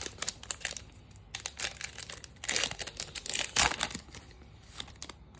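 Trading-card pack wrapper crinkling and tearing as it is opened, in two busy spells of crackling, then only a little faint rustling after about four seconds.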